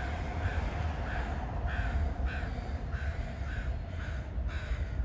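A bird giving a run of short repeated calls, about two a second, over a steady low rumble.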